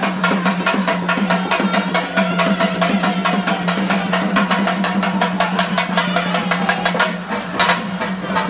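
Drum beaten in fast, even strokes, about seven a second, over a steady low tone, as the rhythm for pilgrims' ritual dancing.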